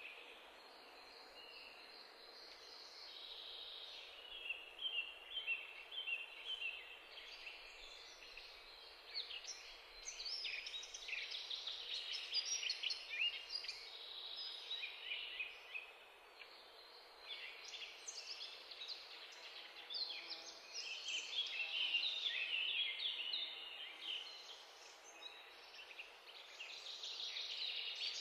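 Egg-dipped bread slices frying in oil in a non-stick pan: a crackling sizzle that swells and fades in waves.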